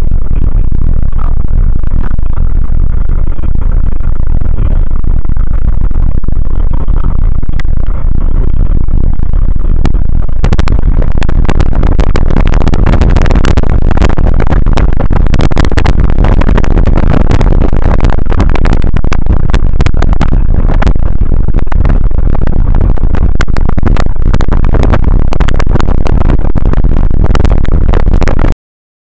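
Loud, distorted rumble of strong wind buffeting a phone's microphone; from about ten seconds in it breaks into dense crackling. It cuts off abruptly just before the end.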